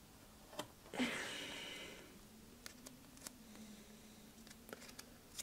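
Faint handling of a vinyl decal and its backing paper: a few light clicks and taps, with a short rustle about a second in.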